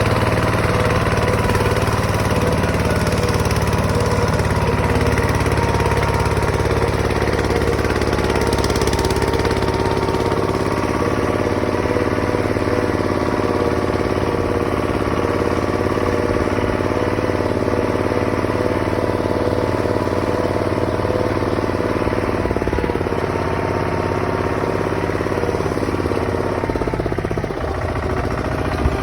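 Bulldozer's diesel engine running steadily, with a brief dip and change in engine note near the end.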